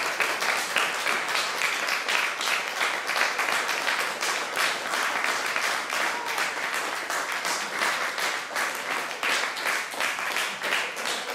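Audience applauding steadily, many hands clapping at the close of a vocal performance.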